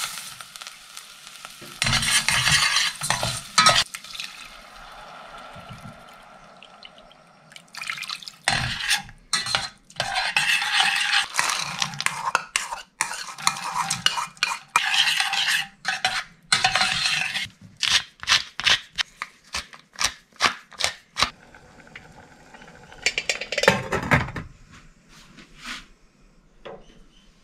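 A utensil stirring and scraping through a wet mixture in a stainless steel saucepan, in spells, with a run of quick clinks against the pan a little past halfway.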